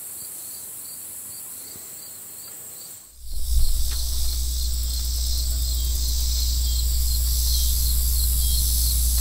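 Insect chorus chirping in a steady pulsing rhythm, a few pulses a second. About three seconds in the sound breaks off and comes back with a steady low rumble underneath, louder than the insects.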